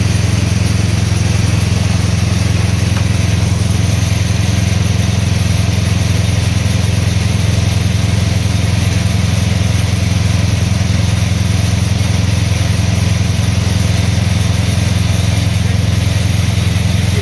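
Stationary rice harvester (thresher) running with its engine going and making a steady low drone, with no change in speed.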